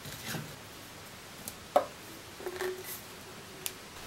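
A few light, separate knocks and clicks of hard plastic being handled: a PVC cement bottle and a PVC end cap being fitted onto a length of PVC pipe. The sharpest click comes a little under two seconds in.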